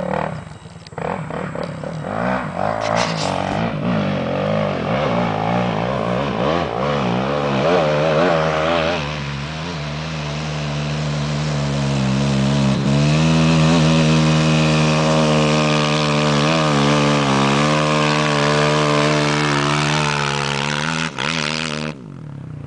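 Suzuki LT-R450 quad's single-cylinder four-stroke engine running, its pitch wavering up and down with the throttle. It cuts off abruptly near the end.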